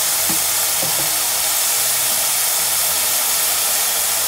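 Chopped onion, garlic and tomato frying in oil in a pan: a steady sizzling hiss.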